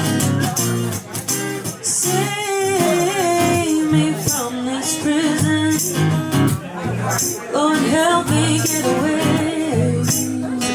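Live band playing the opening of a slow blues-rock song: strummed guitar and bass with a wavering melody line over them.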